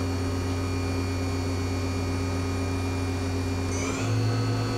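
The Cat 40 Big Plus spindle of a Hyundai WIA F400 vertical machining center running at 5,500 RPM, a steady, quiet motor hum and whine. About four seconds in, its pitch steps up as the spindle speeds up to the next set speed.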